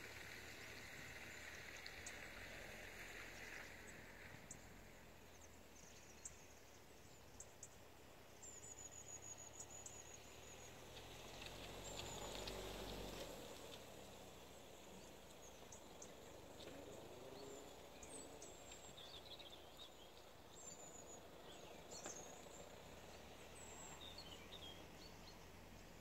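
Faint outdoor ambience with scattered short chirps of small birds, and a low rumble that swells and fades away around the middle.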